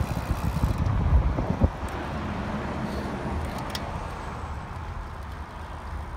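Wind buffeting the microphone over the low road rumble of a slowly moving car, recorded from its open window. The buffeting is heaviest in the first couple of seconds, with two faint clicks midway.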